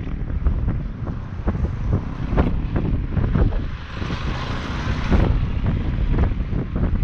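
Wind buffeting the GoPro's microphone in irregular gusts, with a heavy rumble and a louder, hissier rush about four to five seconds in.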